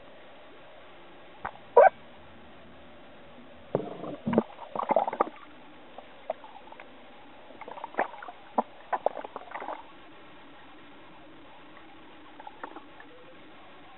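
Water splashing and gurgling with knocks of handling on the camera as it goes from the boat's dive platform into the sea, in irregular short clusters over a low hiss.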